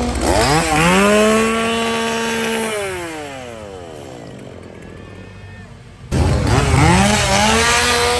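Two-stroke chainsaw engine revved up, held at high revs, then let fall back toward idle; about six seconds in it is suddenly loud again and revs up once more.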